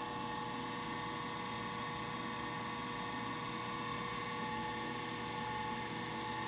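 A steady mechanical hum with a few constant tones, unchanging throughout.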